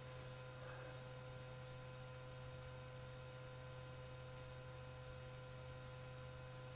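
Faint steady hum with a few steady high tones: quiet room tone.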